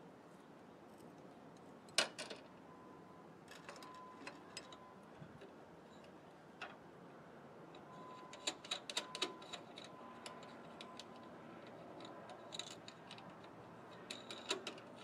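Scattered small metallic clicks and clinks of wire terminals and pliers being handled at the terminal posts of a Ford Model T's coil box, with one sharp click about two seconds in and a quick run of clicks a little past halfway.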